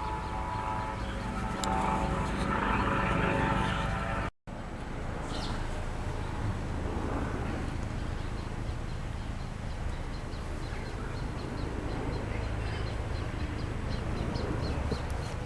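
Outdoor background noise: a steady low rumble with a droning engine sound in the first few seconds that swells, then stops with a brief dropout about four seconds in. Afterwards the rumble goes on with faint, rapidly repeated high chirps.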